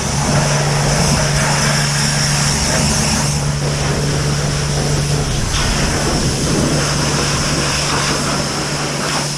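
Self-service high-pressure washer running: the steady hiss of the water jet spraying a motorcycle over a steady low hum from the pump.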